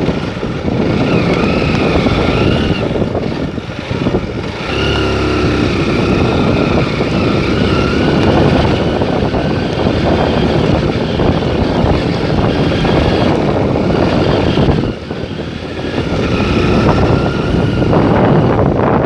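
Honda Bros motorcycle running under way, its engine note wavering up and down, with wind noise on the microphone. It goes briefly quieter about fifteen seconds in.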